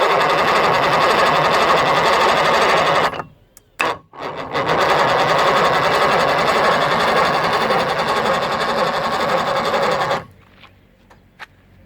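A Mercury 2.5 outboard motor being turned over without starting, making a steady, rapid mechanical clatter. It comes in two long runs: one of about three seconds, and after a short break and a click, one of about six seconds that cuts off suddenly.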